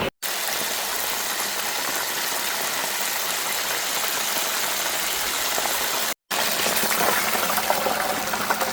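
Coated chicken drumsticks deep-frying in hot oil, a steady sizzle. It cuts off abruptly twice, once right at the start and again about six seconds in.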